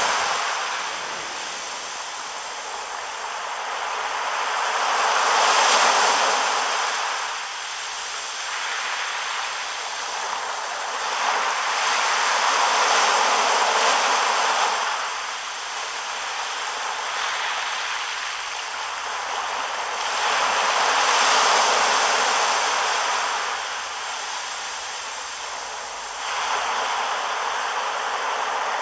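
Waves breaking and washing up a sandy shore, the surf swelling and fading about every seven or eight seconds.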